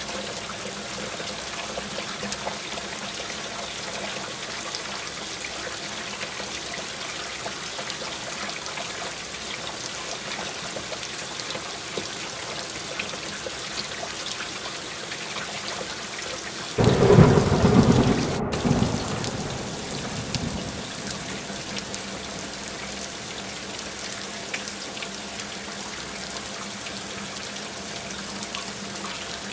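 Steady rain falling, with a sudden loud thunderclap about seventeen seconds in that rumbles away over the next few seconds.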